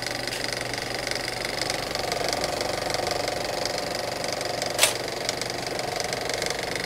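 Film projector running: a fast, steady mechanical clatter with a faint whir, and a single sharp pop about five seconds in.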